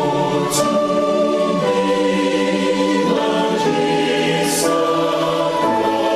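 A choir singing slow gospel music in long held chords that change every second or two, with a few sharp 's' sounds from the singers.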